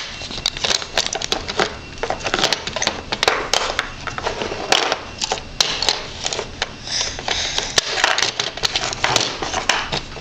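Small toy cubes and a plastic cup clattering and tapping on a high chair tray as they are handled: many irregular clicks and knocks.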